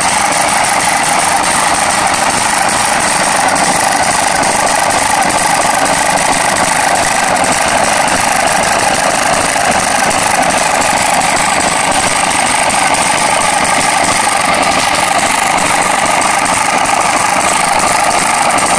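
Small model hit-and-miss engine running steadily with a fast, even run of strokes, belt-driving an antique pencil sharpener.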